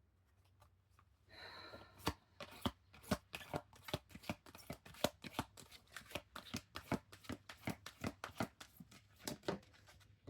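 A deck of oracle cards being shuffled by hand. A brief sliding hiss about a second in is followed by a quick, uneven run of soft card clicks and slaps that stops just before the end.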